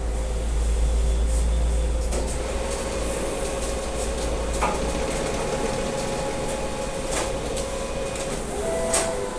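BRI cash deposit machine running its banknote-handling mechanism with a steady mechanical rumble and hum, broken by a few sharp clicks. Short electronic beeps sound near the end.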